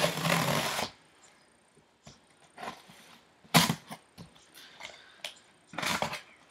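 Packing tape on a cardboard box being cut with scissors and torn open: a loud tearing sound lasting almost a second at the start, then a few shorter tearing and scraping sounds, the last about six seconds in.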